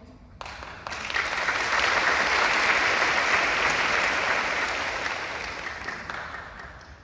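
Audience applauding, building up over the first second or so and fading away near the end.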